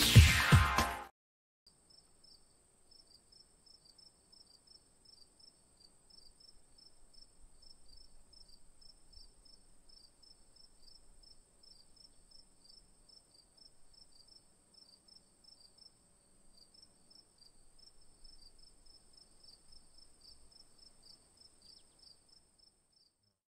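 The tail of electronic music cuts off about a second in. Then crickets chirp faintly: a steady high trill with a fast, rhythmic chirping just below it.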